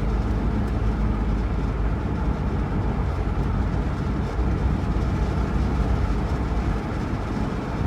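A 2007 Pontiac G6 on the move, heard from inside the car: steady road, wind and engine noise.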